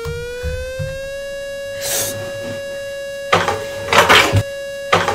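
Civil-defence air-raid siren sounding a single long, steady wail, played back from a recorded alert broadcast. Its pitch settles after a slight rise in the first second. Loud bursts of rustling noise cut across it about two seconds in and again from about three and a half to four and a half seconds.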